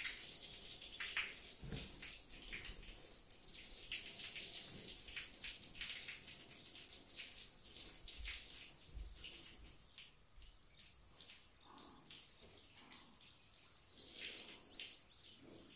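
Water from a hand-held hose spraying onto a horse's coat and splashing and dripping onto a concrete floor. It is steady at first, eases off about two-thirds of the way through, then comes back in a louder spurt near the end.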